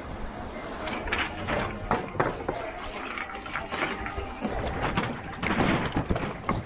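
Plastic bags full of empty aluminum cans being handled and shifted in a pickup truck bed: a steady run of irregular clattering and crinkling.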